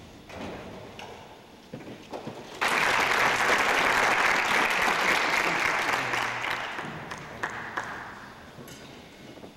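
Audience applause, starting suddenly about two and a half seconds in and dying away over the last few seconds.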